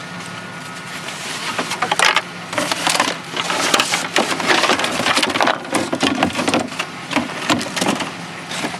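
Hands rummaging through a pile of discarded household junk and parts: irregular clattering, knocking and crackling of objects being moved and handled, getting busier about two seconds in.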